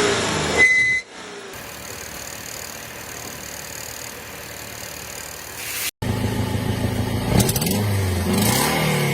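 Car exhaust with a broken flex pipe, whose loose mesh leaks and rattles as the engine runs. It gives a steady hiss, then after a short break the engine running, rising briefly in revs near the end.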